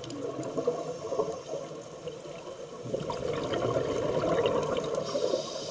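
Scuba diver's exhaled air bubbling out of the regulator, heard underwater through the camera housing. A louder, denser stretch of bubbling starts about three seconds in, and a hiss starts near the end.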